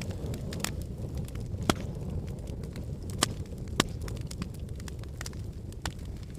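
Wood fire burning in a fireplace: a steady low rumble of flames with irregular sharp crackles and pops, three louder snaps about one and a half, three and nearly four seconds in.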